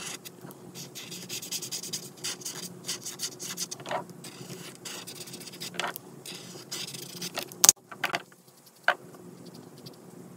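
Ohuhu brush-tip marker rubbing and scratching across paper in short repeated strokes as it fills in shapes on a coloring page. About three-quarters of the way in comes one sharp click, the loudest sound, followed by a couple of fainter clicks.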